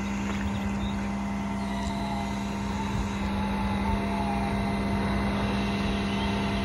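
Boom crane truck's engine running steadily with a constant droning hum while the crane is being worked.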